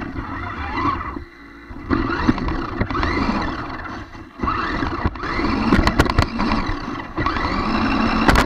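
Radio-controlled car's electric motor whining, rising and falling in pitch as it speeds up and slows over and over, with two short pauses and a few sharp knocks as the car bumps into things.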